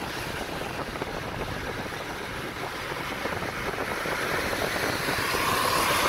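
Road noise heard from inside a moving car on a wet road: a steady hiss of tyres and engine, growing louder over the last couple of seconds as another car draws up close alongside.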